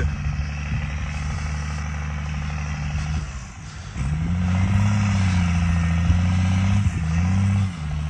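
Motor vehicle engine running at a steady low note, easing off briefly about three seconds in. It then picks up again with a louder note that rises and wavers, and drops back just before the end.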